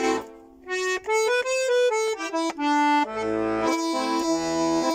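Garmon (Russian button accordion) playing alone: a short break in the sound, then a quick run of melody notes over the chords, settling into held chords.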